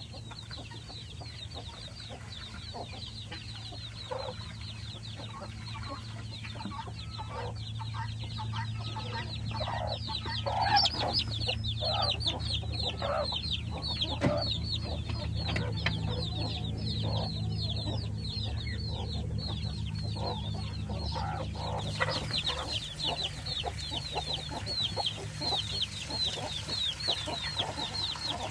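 Chickens clucking and calling: a dense, continuous run of short, high, falling peeps, with lower clucks coming thicker in the middle stretch.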